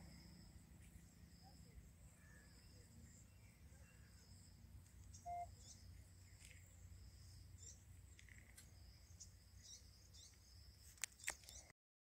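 Near silence: faint rural outdoor ambience with high, repeated chirping and a low background rumble. Two sharp clicks sound shortly before the audio cuts off near the end.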